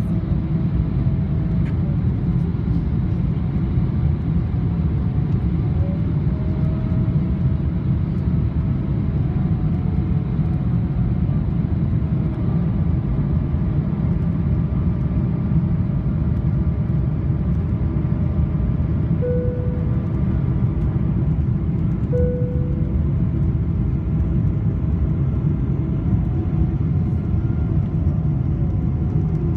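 Boeing 777-300ER cabin noise in flight: its GE90 engines and the airflow make a steady low rumble. Two short tones sound about three seconds apart past the middle.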